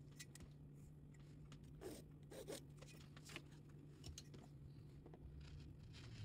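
Near silence over a low steady hum, with a few faint brief scrapes and rustles of a metal ruler, paper template and pencil being handled on fabric and a cutting mat, mostly in the middle.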